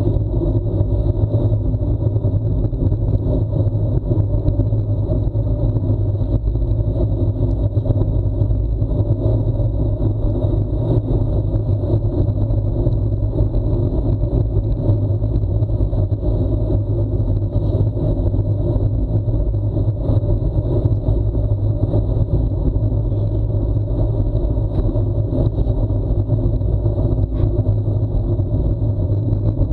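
Steady low rumble of wind buffeting an action camera's microphone, mixed with tyre noise, as a bicycle coasts fast downhill on an asphalt road.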